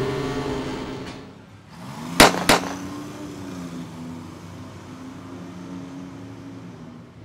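Pump-action shotgun racked: two sharp, loud clacks about a third of a second apart. A low sustained drone of the film score follows.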